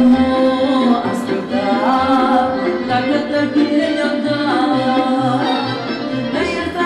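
Music: a Romanian song with a steady beat in the bass under a melody that slides in pitch.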